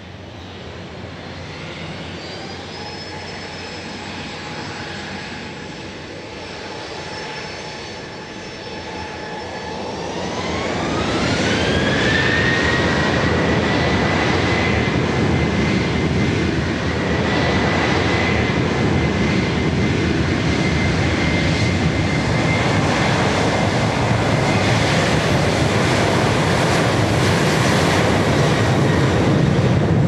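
Jet airliner engines running, then spooling up about ten seconds in with a rising whine. They hold loud and steady at high power, as for a takeoff.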